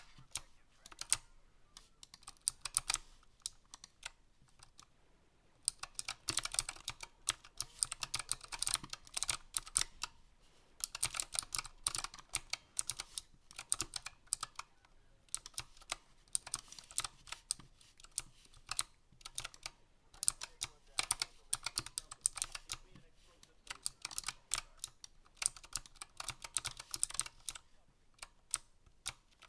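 Typing on a Razer Huntsman Mini optical-switch keyboard: rapid keystroke clicks in runs of a few seconds, broken by short pauses.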